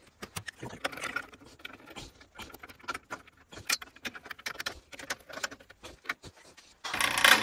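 Irregular light metallic clicks and taps of a socket tool working the set screw of a new spring coupler in a Bell & Gossett 100-series circulator pump. Near the end the pump comes on suddenly with a loud, steady running noise.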